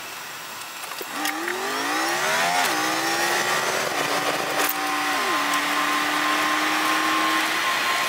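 Chevy truck engine accelerating: its pitch climbs for a second and a half, then drops at an upshift about two and a half seconds in and again just after five seconds, before settling into a steady cruising drone.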